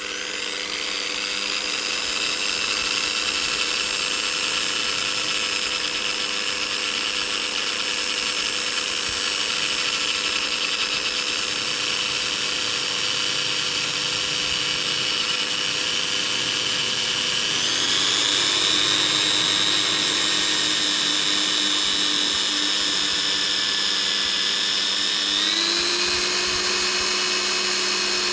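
Electric drill running continuously with a steady motor whine. The whine builds over the first couple of seconds and then steps up in pitch twice, once past the middle and again near the end.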